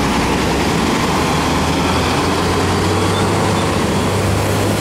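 A road vehicle's engine running steadily: a constant low hum with a noisy rumble over it, holding an even level throughout.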